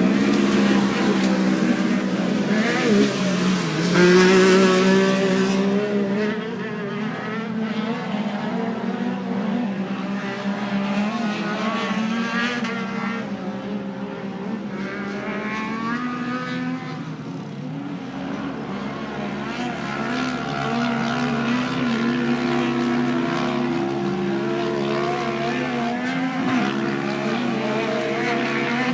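Several non-turbo off-road race car engines running and revving as the cars race, their pitches rising and falling over one another, loudest in the first few seconds.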